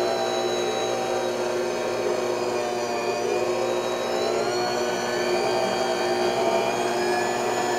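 Mondial Profissional Eletrônica Premium stand mixer running with its dough hook turning through flour and liquid for bread dough: a steady electric motor whine that dips briefly in pitch about three seconds in.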